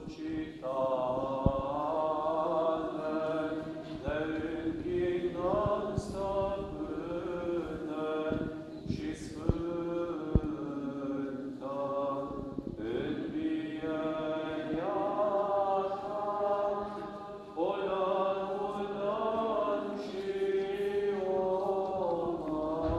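Orthodox liturgical chant: voices singing one slow, sustained phrase after another, with a few short clicks over it.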